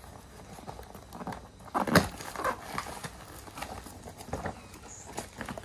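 Hands handling and pulling open a cardboard shipping parcel: scattered rustles, scrapes and crinkles of cardboard and label paper, with a louder burst about two seconds in.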